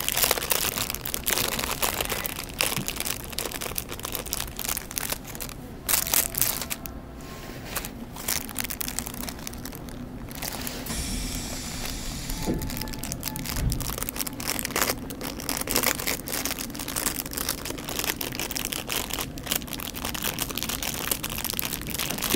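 Interior noise of a moving subway car: a steady running rumble with frequent crackling clicks and rattles.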